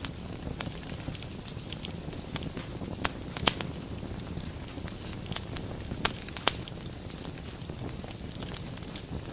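Wood logs burning in a fireplace: a steady low rumble of flame with constant small crackles, and a few sharper, louder pops, two about three seconds in and two about six seconds in.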